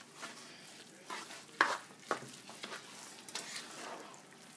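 Spoon stirring a thick, moist cornbread dressing mixed with ground beef in a pot, with irregular short scraping and sloshing strokes.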